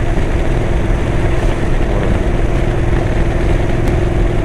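Motorcycle engine running steadily while riding, a constant hum over low rumble and wind and road noise.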